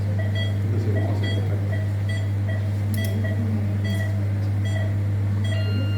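Operating-theatre patient monitor beeping in a steady rhythm, roughly two short pitched beeps a second, the pulse-oximeter tone that follows the patient's heartbeat. A loud, steady low electrical hum runs underneath.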